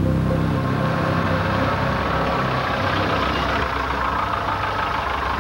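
Car engine running steadily, a low rumble with a growing hiss. The tail of a music cue fades out in the first second.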